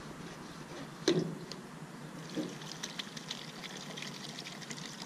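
Liquid being poured from a rectangular metal can, a steady trickling pour, after a sharp knock from the can being handled about a second in.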